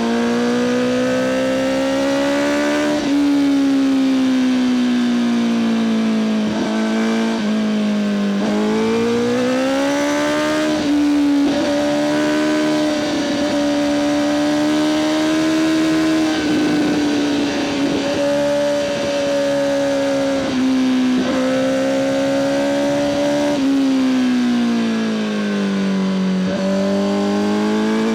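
Honda CBR1000RR-R SP Fireblade's inline-four engine through an Akrapovic exhaust, under way at moderate revs. The engine note climbs and falls several times as the throttle is opened and closed, with two quick short revs about a quarter of the way in.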